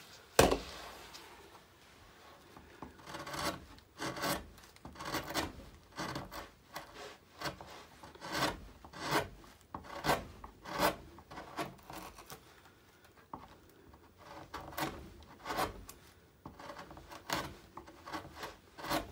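A single sharp knock about half a second in, then a knife blade shaving wood by hand in short scraping strokes, one to two a second, with a brief pause partway through.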